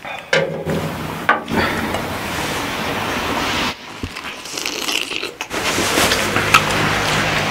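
Rustling and handling noise, scraping and crinkling, broken by several abrupt cuts.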